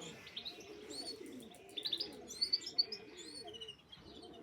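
Pigeons in a loft cooing, low and wavering, with a run of high chirps about two to three seconds in.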